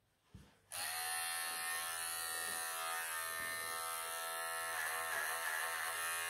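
Wahl cordless pet clippers switched on with a click just under a second in, then running with a steady electric buzz while trimming matted clumps out of a cat's dense coat.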